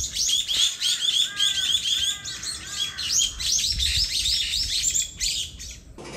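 Many small birds chirping in a dense, overlapping chorus of short, quickly repeated high calls, with a few lower whistled notes in the middle. The chorus cuts off suddenly near the end.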